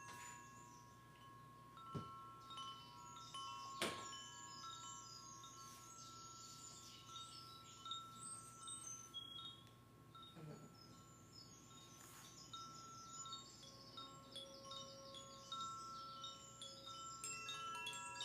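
Wind chimes tinkling softly with many quick, high notes over long, steady ringing tones, and a couple of sharp knocks in the first few seconds.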